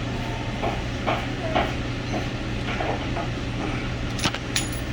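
Small clicks and scrapes of a door knob's parts being worked by hand, with two sharp metallic clicks about four seconds in as the piece comes free, over a steady low hum.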